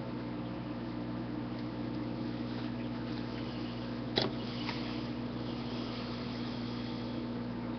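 A steady low electrical hum, with a sharp click about four seconds in and a fainter one just after.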